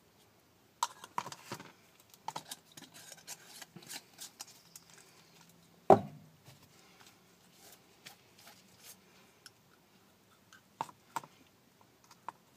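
PVC pipe, fittings and a can of pipe primer being handled: scattered clicks, taps and rubbing, with one sharp knock about six seconds in.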